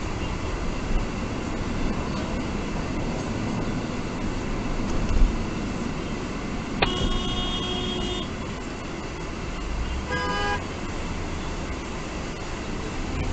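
Steady road and engine noise heard from inside a moving car. About seven seconds in, a car horn sounds for just over a second. A few seconds later comes a second, shorter horn blast at a different pitch.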